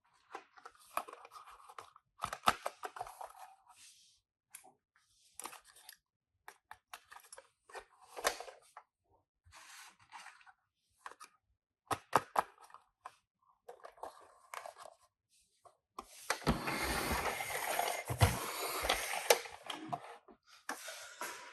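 Packaging of a Tomica toy car being handled and opened: scattered clicks and rustles of cardboard and plastic, then a few seconds of continuous tearing and crinkling near the end.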